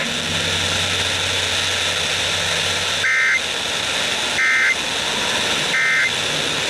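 Radio static hiss, then three short warbling two-tone data bursts a little over a second apart: the Emergency Alert System end-of-message (EOM) tones that close the warning.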